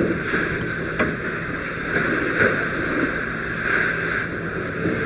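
Water from a fire hose spraying hard onto a burning car's body and wheel to knock down the fire, a steady rushing hiss. A steady low engine hum runs beneath it.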